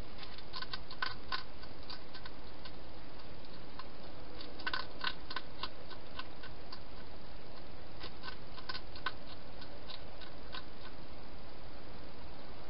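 Wild hedgehog eating from a bowl, its chewing heard as clusters of sharp crunching clicks that come several times over a steady hiss.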